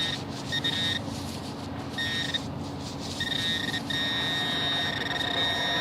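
Metal detecting pinpointer beeping over a shallow target in the dig hole: a few short separate beeps, then, about four seconds in, a long steady tone as the probe closes on the metal.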